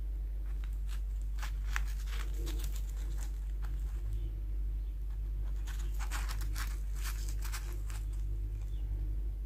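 Fried dough pie being pulled and squeezed open by hand, its crust crackling and tearing in short clusters of small crackles, over a steady low hum.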